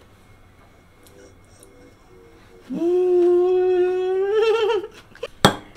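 A voice humming one long 'mmm', held on a steady pitch for about two seconds, then wavering and rising at the end, the sound of someone savouring a bite of food. A single sharp click comes near the end.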